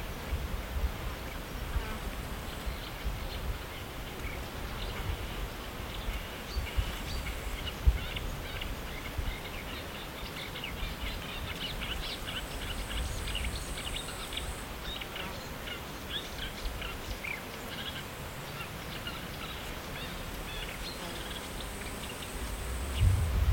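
Marsh warbler singing: a fast, busy run of short chattering notes, densest through the middle. A faint thin high steady tone comes and goes twice, and wind rumbles on the microphone near the end.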